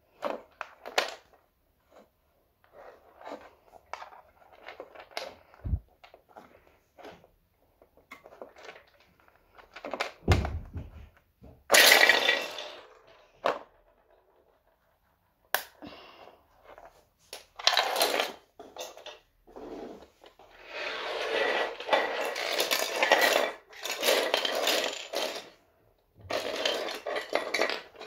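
Playmobil plastic fence sections being handled and snapped together on a laminate floor: irregular plastic clicks and knocks with rustling, and a longer stretch of rustling and clattering a little past the middle.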